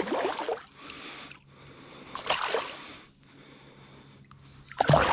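Water splashing and sloshing at the side of a kayak in about three short bursts, while a big hooked smallmouth bass is brought in.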